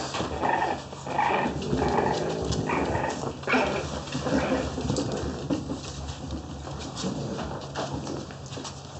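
French bulldog puppy making a run of short calls, one or two a second, which thin out and fade after about four seconds, leaving scattered light clicks.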